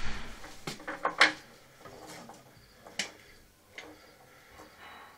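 Wooden matryoshka nesting doll being handled: a handful of short, sharp wooden clicks and knocks as the doll halves are pulled apart and knocked together, the loudest about a second in.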